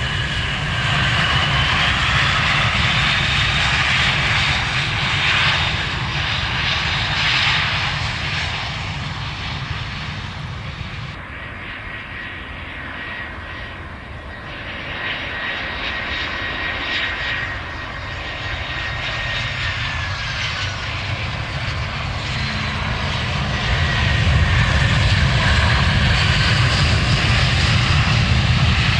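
Jet airliner engines at close range: a steady low rumble with a turbine whine that glides up and down in pitch. The sound dips midway and grows loud again near the end.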